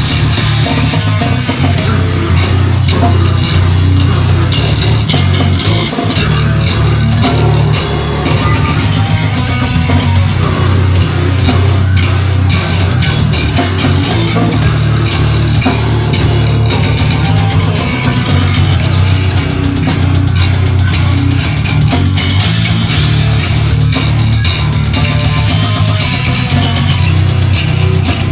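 Brutal death metal band playing live at full volume: heavily distorted guitar, bass guitar and fast, dense drumming, with a vocalist at the microphone, picked up close to the stage.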